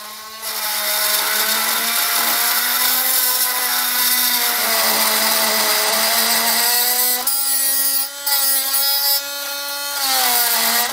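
Oscillating multi-tool running and cutting away a small piece of material to make clearance: a steady, high buzzing whine with a grinding, scraping noise. The cut eases off and the pitch shifts briefly a few times after the middle.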